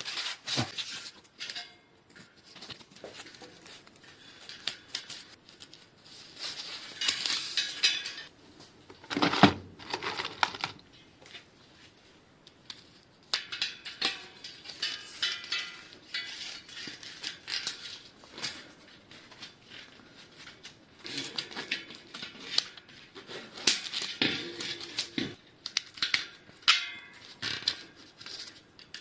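Metal parts of a bicycle wheel being handled: irregular clinking and scraping, with one louder knock about nine seconds in.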